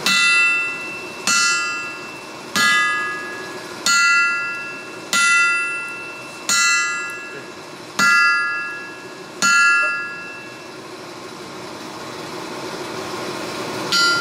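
Hand hammer striking red-hot steel on an anvil, about one blow every second and a quarter, each leaving a ringing metallic tone. The blows stop for about three seconds, then one more strike comes at the end.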